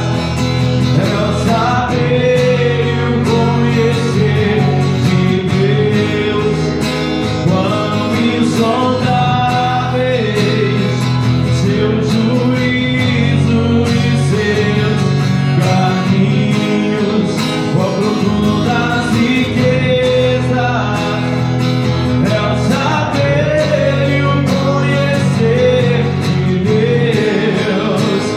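A man singing a Portuguese-language song while strumming a steel-string acoustic guitar, with a steady strummed accompaniment under a wavering sung melody.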